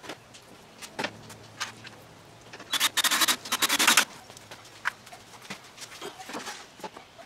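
Cordless drill run in a rapid, rattling burst of about a second and a half near the middle, amid scattered knocks of wooden boards being handled.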